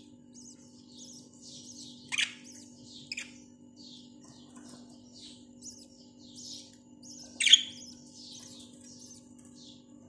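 Caged budgerigars chattering: a steady stream of short, high chirps and warbles, broken by sharp louder calls about two and three seconds in and a loudest one about seven and a half seconds in.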